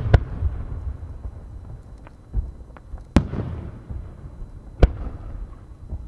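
Aerial firework shells bursting: a sharp boom right at the start, another about three seconds in and a third near five seconds, each followed by a rolling low rumble, with fainter pops between.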